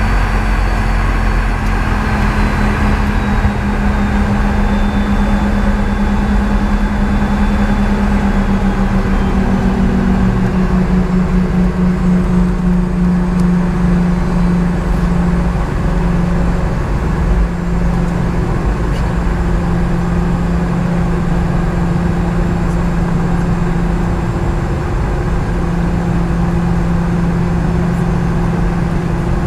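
Boeing 717's rear-mounted Rolls-Royce BR715 turbofan engines heard from a cabin seat just beside them while taxiing: a steady drone with a low hum that sags slightly in pitch. A faint high whine drifts downward over the first several seconds.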